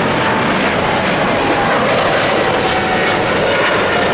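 Boeing 777-300ER's GE90 turbofan engines at take-off power during the climb-out. The roar is loud and steady, with a whine that slowly falls in pitch.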